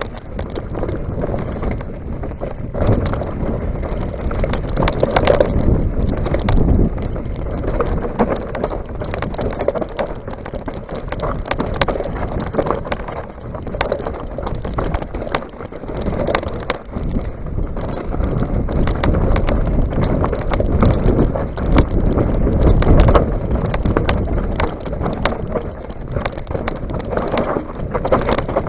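Mountain bike descending a rocky, gravelly trail: knobby tyres crunching over loose stones and the bike rattling and knocking over bumps in an uneven clatter, with wind buffeting the microphone.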